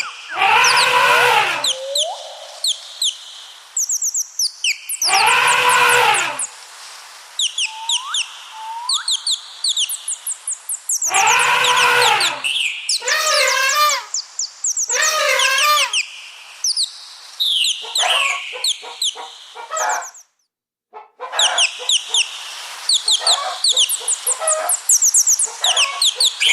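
Small birds chirping throughout, with three loud, drawn-out farm-animal calls about every five to six seconds. Rapid chicken clucking takes over from about two-thirds of the way through.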